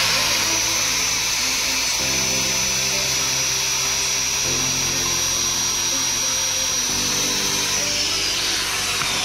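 Electric hand drill running with a steady high whine while drilling a hole, winding down near the end. Background music with chords changing every couple of seconds plays underneath.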